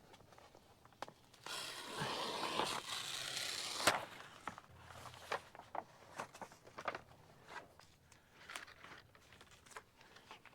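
Vinyl wrap sheet being handled and peeled on a car hood: about two seconds of rustling, crackling plastic early on, ending in a sharp click. Scattered light taps and clicks follow.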